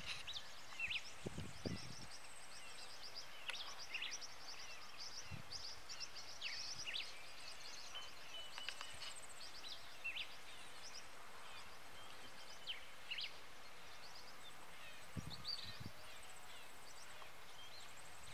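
Rural outdoor ambience: many small birds chirping and whistling in short, scattered calls, with a few high buzzing trills over a steady low hiss. There are a couple of soft low thumps, one near the start and one about three-quarters through.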